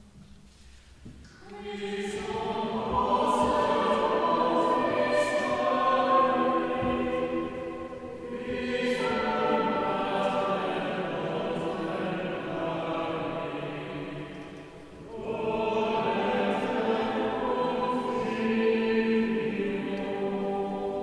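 A group of voices singing a slow Latin liturgical chant, in three long phrases with short pauses for breath between them.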